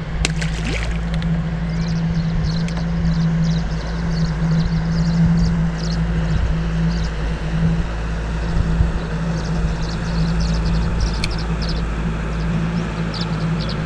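A steady low motor hum, most likely the bass boat's bow-mounted electric trolling motor, over a low wind rumble on the microphone. Two runs of quick, faint, high chirps sound above it, one in the first half and one near the end.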